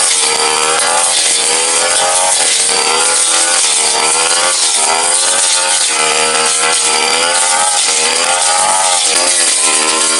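Tasto TK 328G brush cutter engine running at high revs. Its pitch dips and recovers every second or so as the cutting head works through thick brush.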